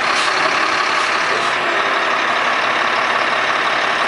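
A heavy truck's engine running close by, a loud, steady noise.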